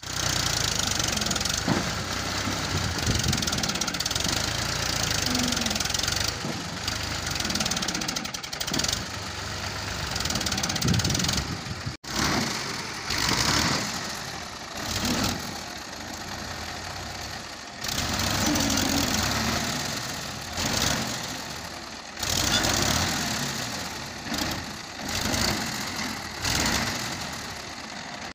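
Ghazi tractor's diesel engine running hard under load as its rear blade drags through heavy soil, the revs swelling and easing again and again in the second half. The sound breaks off sharply for an instant about twelve seconds in.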